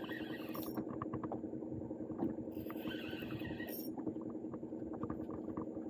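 Spinning reel being cranked in short spells, about a second each, over a steady engine hum.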